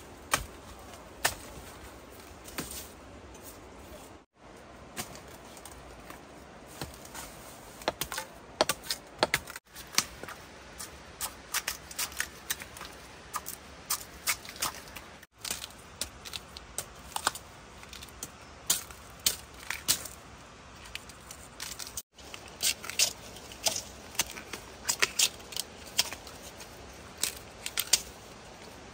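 Dry leaves and plant stems crackling and snapping in quick, irregular sharp clicks.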